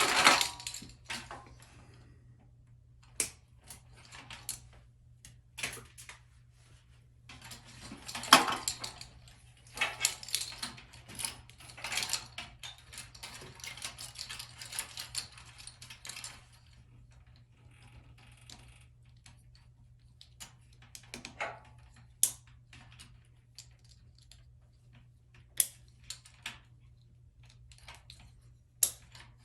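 Irregular small plastic clicks, taps and rattles from hand-handling a Cat6 connector and cable, busiest in the middle, with a few separate sharp clicks near the end.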